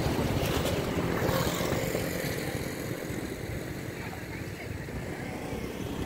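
Road traffic passing: a motor vehicle's noise fades away over the first few seconds, then another vehicle approaches near the end.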